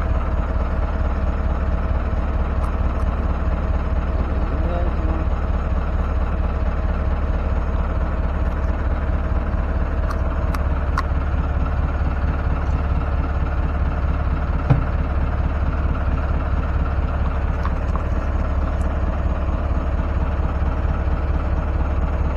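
Fishing boat's engine idling steadily, with a single sharp knock about two-thirds of the way through.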